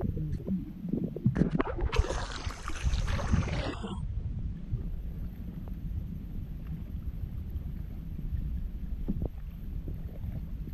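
Kayak paddle splashing through the water for about two seconds, then a steady low rumble as the kayak glides on.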